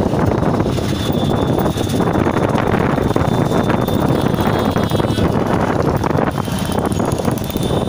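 Steady, loud running noise of a moving auto-rickshaw heard from on board, its small engine droning under wind and road noise, with city traffic around.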